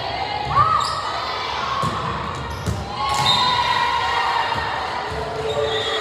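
Gym sounds during a volleyball match, echoing in a large hall: crowd voices and shouts, with a sharp squeak about half a second in and scattered thuds of ball contacts and footwork on the court.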